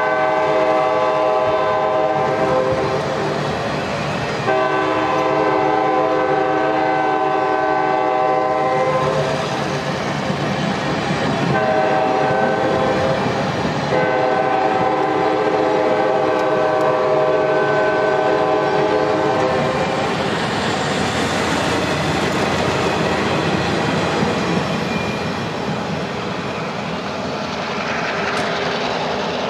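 Locomotive air horn sounding four blasts, long, long, short, long (the grade-crossing signal), over the steady rolling and clatter of passenger cars passing on the rails. The rolling noise fades near the end as the train moves away.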